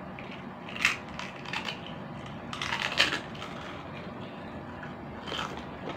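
Crunching of chicharon, crisp pork crackling, being chewed close to the microphone, in short irregular bursts of crackle with the loudest around a second in and again around three seconds in.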